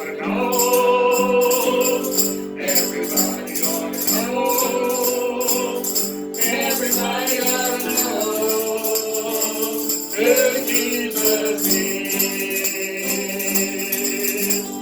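Gospel singing over a sustained instrumental accompaniment, with a steady percussion beat.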